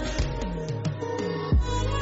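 Electronic music with deep bass notes that drop in pitch, the loudest about one and a half seconds in.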